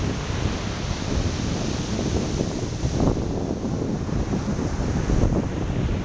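Ocean surf breaking and washing up the beach, with wind buffeting the microphone as a gusty low rumble. The hiss of the surf eases about halfway through.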